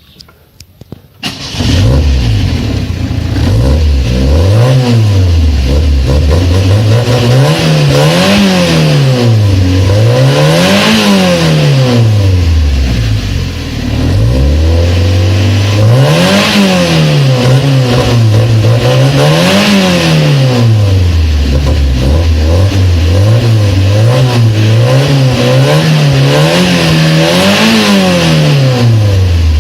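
Stock Yugo Koral 55's 1.1-litre four-cylinder engine starting about a second in, then idling and being revved again and again, each rev rising and falling back to idle, through its stock exhaust.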